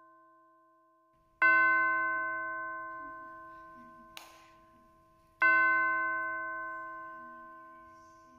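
A bell is struck twice, about four seconds apart. Each stroke rings out with several overtones and slowly fades.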